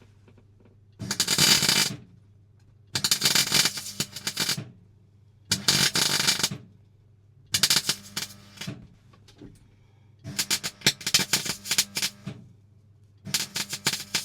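Electric welding arc crackling in short bursts, about six stitches of a second or two each, tacking a patch plate into a car floor, with a faint steady hum between them.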